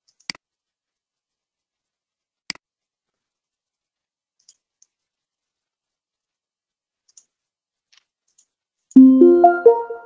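Two computer mouse clicks, then near the end a short computer alert chime of several quick notes climbing in pitch, sounding as the GoToTraining software announces that the organizer has ended the training session.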